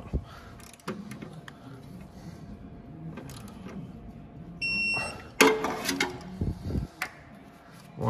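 A short, single electronic beep about halfway through, as a digital torque wrench gives when an exhaust manifold bolt reaches its 18 ft-lb setting, followed by a sharp clack of the wrench and socket and a few lighter knocks, with faint tool handling throughout.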